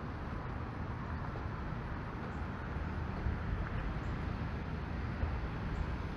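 Steady road and wind noise of a moving vehicle, strongest at the low end, with no distinct events.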